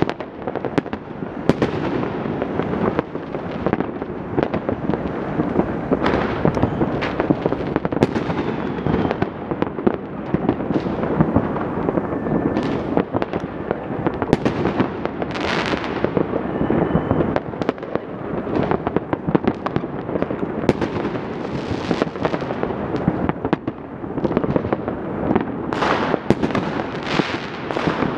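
Many fireworks and firecrackers going off at once: a continuous, dense rattle of bangs and pops, with a few brief whistles in the middle.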